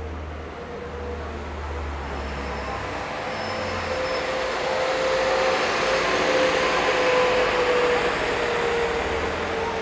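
A vehicle passing close by: its noise builds over several seconds to a peak about seven seconds in, then fades, with a steady whine running through it.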